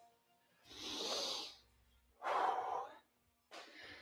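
A person breathing hard during dumbbell one-arm rows: three forceful exhales about a second and a half apart.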